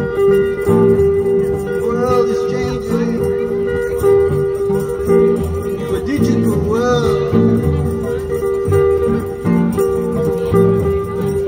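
Blues busking music on a plucked string instrument: a steady drone note runs under a repeating low rhythmic figure, with a couple of short gliding higher notes about two and seven seconds in.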